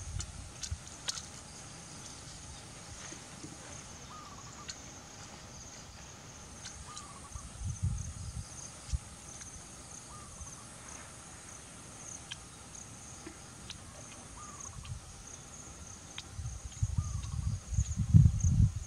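Insects trilling in a steady, high, pulsing chorus, with a short mid-pitched call repeating every couple of seconds. Wind buffets the microphone in the last few seconds, louder than the insects.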